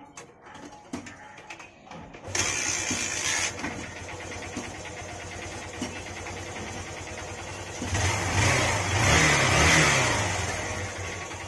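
Honda Shine SP 125's single-cylinder four-stroke engine catching and starting about two seconds in, then running steadily. Near the end it is revved up and eases back down.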